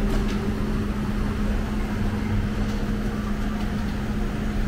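Steady mechanical hum with a constant low drone and no sudden sounds.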